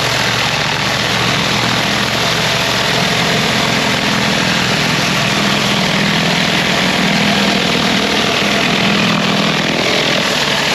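Pressure washer running steadily, its engine humming under the loud hiss of the high-pressure water jet blasting the paving.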